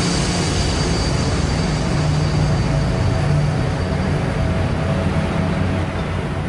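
Train rumbling past, a steady low rumble that starts to fade away near the end.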